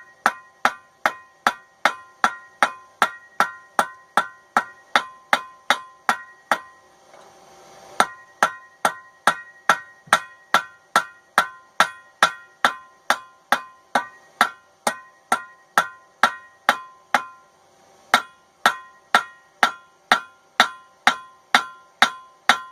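Blacksmith's hammer beating a hot railroad spike on an anvil at a steady pace of about two and a half blows a second, each blow ringing, while the blade is drawn out and widened. The hammering breaks off briefly about 7 seconds in and again about 17 seconds in.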